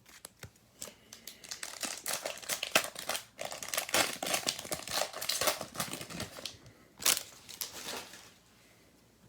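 Plastic wrapper of a trading card pack being torn open and crinkled by hand, a dense run of crackles and rustles with one sharp rip about seven seconds in.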